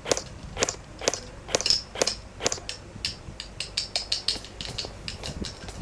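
Airsoft gun firing single shots, sharp snaps about two a second, then a run of quicker, fainter clicks from about two and a half seconds in.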